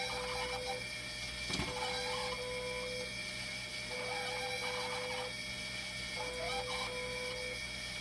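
A dialysis machine running: a steady high whine, with a cyclic pitched whirring that repeats about every two seconds as two short pulses. One sharp click comes about a second and a half in.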